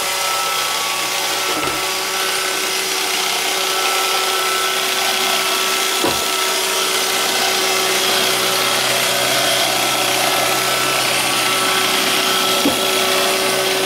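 iRobot Roomba robot vacuum running: a steady whir of its motor and brushes with a high hiss, and a few light knocks.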